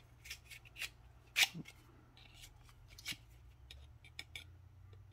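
A fixed-blade rescue knife and its hard plastic sheath being handled: a scatter of short clicks and scrapes, the sharpest about a second and a half in.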